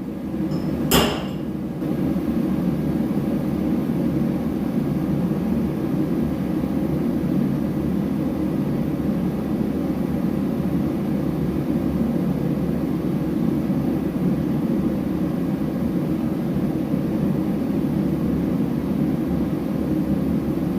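One sharp metallic knock about a second in, then a kerosene torpedo heater starts running with a steady roar about two seconds in and runs on evenly.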